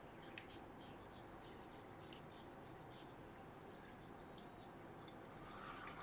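Faint, irregular scratching and rubbing, many light ticks, from small hand-tool work on a circuit board as the pads are cleaned.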